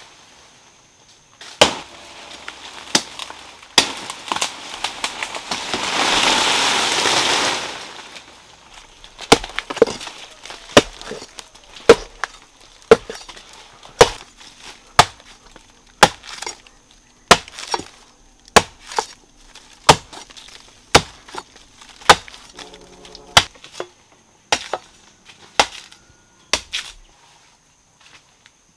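Machete chopping into the fibrous base of a palm trunk, sharp strokes about once a second. These come after a two-second rustle of palm fronds several seconds in.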